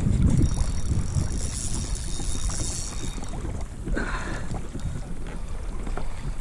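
Wind buffeting the microphone over a kayak on choppy water, a low rumble that is strongest at the start. A brief scratchy sound comes about four seconds in.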